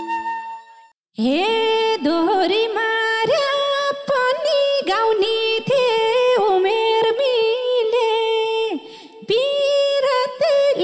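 A woman sings a Nepali dohori verse unaccompanied, in long held and bending notes. The band's instruments die away at the start, and she breaks off briefly near the end before singing on.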